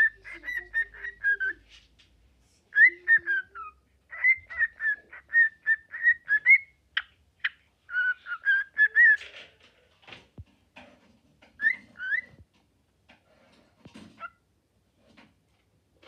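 Cockatiel whistling in several short phrases of quick warbling notes, then a few scattered clicks and taps near the end.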